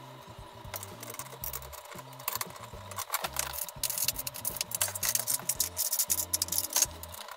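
Sped-up handling noise from assembling a gaming chair: a fast, chattering run of clicks, rattles and plastic rustling as parts and packaging are handled, growing busier about halfway through.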